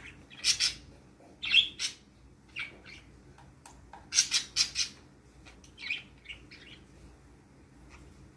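Pet budgerigars chirping in short bursts, with a quick run of four chirps about four seconds in; the calls die away for the last second or so.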